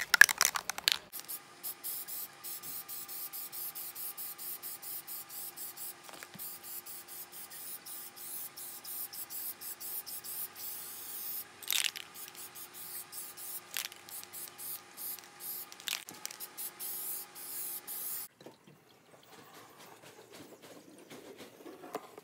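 Aerosol spray-paint can (Rust-Oleum Painter's Touch 2X Ultra Cover) rattling briefly as it is shaken, then hissing in many short spray bursts, with a few louder rattles along the way. Near the end the spraying stops and only faint handling noise is left.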